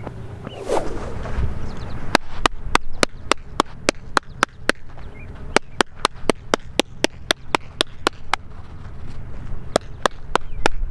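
A whoosh about a second in, then rapid hand claps in batting gloves, about four a second, in runs broken by two short pauses.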